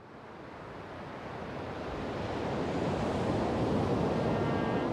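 Sea surf washing onto a beach, a steady rush of waves that fades in over the first few seconds and then holds.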